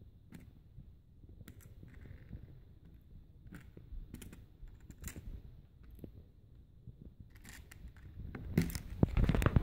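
Faint, scattered clicks and taps of small metal padlock parts being handled and set down. Near the end comes a louder, busier clatter of handling.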